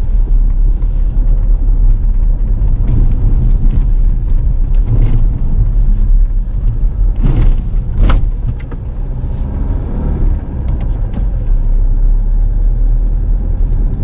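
Steady low rumble of a vehicle on the move, engine and road noise heavy in the bass, with a couple of sharp knocks about seven and eight seconds in.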